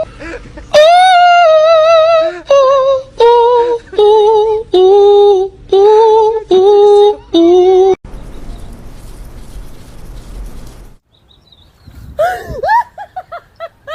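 A voice holding a run of about eight long, wavering sung notes that step down in pitch, each half a second to a second and a half long. Then come a few seconds of hiss, and quick squawking calls near the end.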